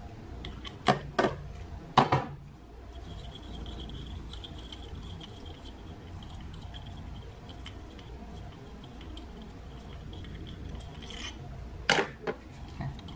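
Small socket tool and metal nuts on the ignition-coil ground wires of a Volkswagen 1.4L turbo engine: a few sharp metal clicks early on, then several seconds of a faint steady sound with a thin high tone, then two more clicks near the end.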